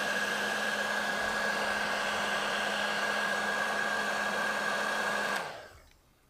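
Heat gun blowing air steadily, a fan hiss with a constant whine, shrinking heat-shrink tape over a wire connector; it cuts off about five seconds in and fades away.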